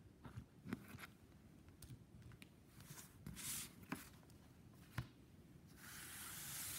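Faint handling noises from a plastic action figure and its cardboard backing card: scattered small clicks and taps and a brief rustle, then a steady scraping hiss for about the last second as the card is moved.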